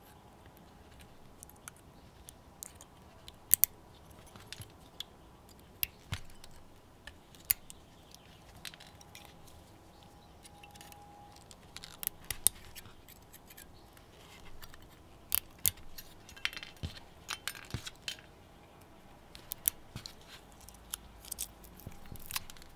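Side cutters gripping and rolling spot-welded nickel strips off 18650 lithium-ion cells, breaking the welds: scattered sharp clicks and small snaps at irregular intervals, busier in the second half.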